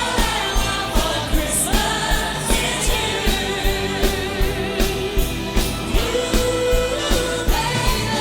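Pop music with singing: held, wavering vocal notes over a steady driving beat.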